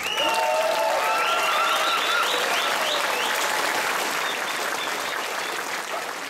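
Audience applauding right after the music stops, with a few voices cheering and whooping over the clapping in the first three seconds; the applause then slowly dies down.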